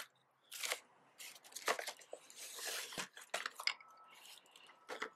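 Weakly glued motor mount being wiggled and pulled out of a foam RC plane fuselage: several short scraping, tearing noises, one longer one midway, as the glue bond breaks and the mount comes free of the foam.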